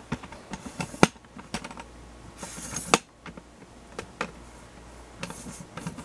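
Handling noise: irregular light clicks and taps, with a short rustle about two and a half seconds in.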